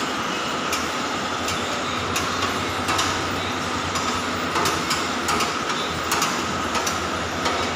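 Steady mechanical running noise with a steady tone, broken by irregular sharp metallic clicks and knocks about once a second.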